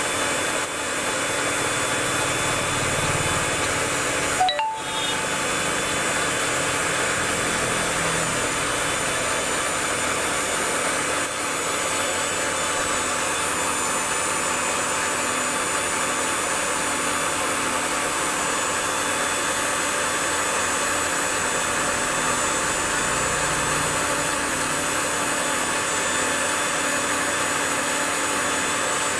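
A steady mechanical whirr with a few constant high tones, and one sharp click about four and a half seconds in.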